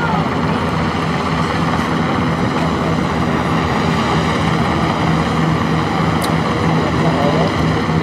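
Helicopter flying overhead, a steady low rotor drone under a constant hiss.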